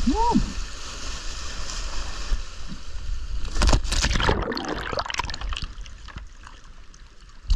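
Ocean surf washing over lava rocks, then loud rushing splashes of water about three and a half seconds in as the diver goes into the churning whitewater, followed by softer sloshing and gurgling at the surface.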